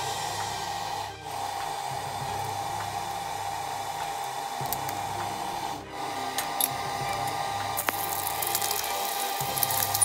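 A steady whirring hum with a constant tone runs throughout. Near the end, hot oil starts crackling and sizzling as halved boiled eggs go into the frying pan.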